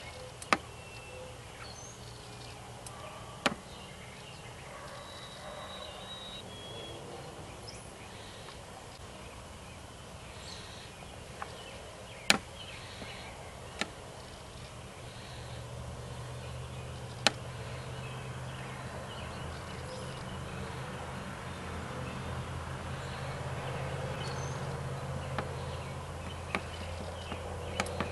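Outdoor ambience in a wooded yard at dusk: faint birds chirping over a steady background, a few sharp clicks, and a low hum that comes in about halfway and slowly grows louder.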